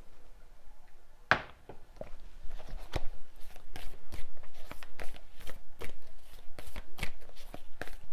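Tarot cards being shuffled by hand: one sharp snap about a second in, then a steady run of quick card slaps, three or four a second.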